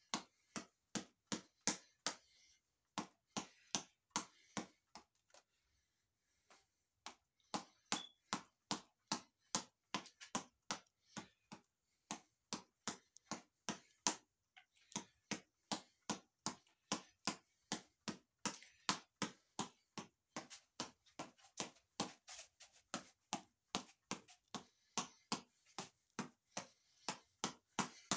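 Quick sharp smacks of punches hitting a boxing reflex ball on a headband cord as it rebounds, about three hits a second in rapid runs. There is a longer break about five to seven seconds in, and short pauses near three, twelve and fifteen seconds.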